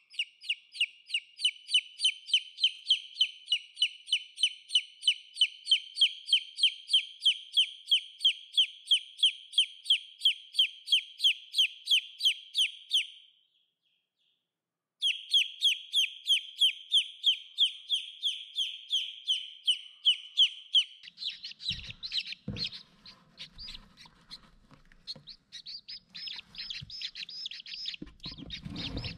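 Newly hatched Rhode Island Red chick peeping loudly, a long, even run of short, falling peeps about four a second, cut off by a brief silence about halfway and then resuming. In the last third, several chicks peep together, with a few soft knocks.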